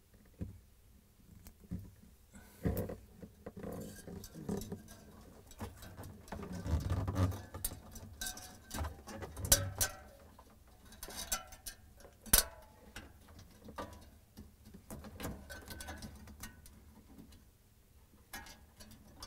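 Irregular small clicks, taps and scratches of hands working a plastic zip tie and sensor wire in among a refrigerator evaporator's aluminum fins, with one sharper click about two-thirds of the way through.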